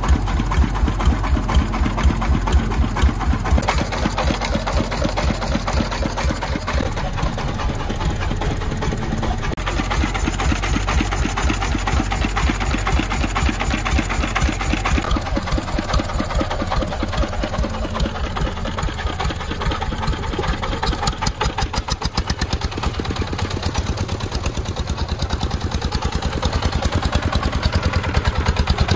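Single-cylinder horizontal diesel engine of a three-wheeled công nông truck running with a rapid, even chugging beat, with a mini excavator's engine also working. Near the end the truck's engine speeds up as the sand-loaded truck pulls away.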